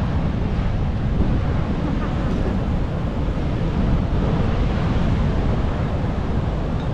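Wind buffeting the microphone, steady and heaviest in the low end, over the wash of ocean surf.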